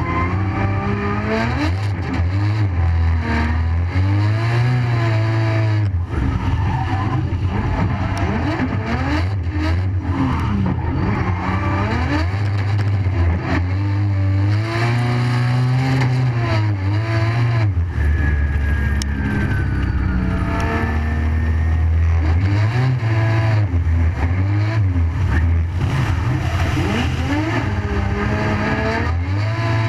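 Drift car's engine heard onboard, revving up and falling back again and again as the car slides sideways through the corners, under steady tyre noise from the drift.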